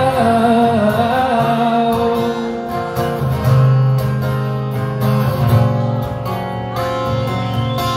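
Steel-string acoustic guitar strummed live through a PA, with a man's sung note wavering at the start before the guitar carries on alone.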